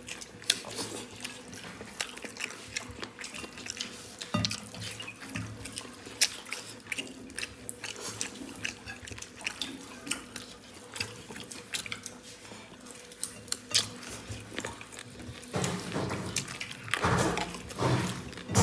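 Close, wet eating sounds of rice and curry being mixed and squeezed by hand on a ceramic plate and eaten, with many small clicks and lip smacks, louder near the end.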